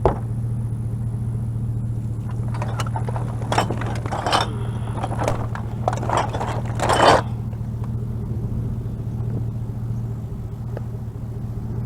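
A vehicle engine idling steadily, with several bursts of rustling and scraping from about two to seven seconds in as trash is dug through and shifted.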